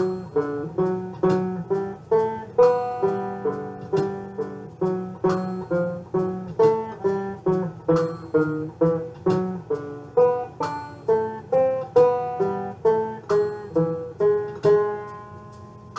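Solo banjo playing a waltz melody in plucked notes, each ringing and fading, about two to three a second. Near the end a final note is left to ring out.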